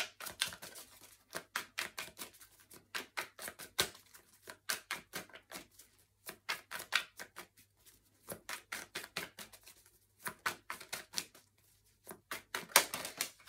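A tarot deck being shuffled by hand: rapid runs of light card clicks, coming in several bursts with short pauses and a louder run near the end.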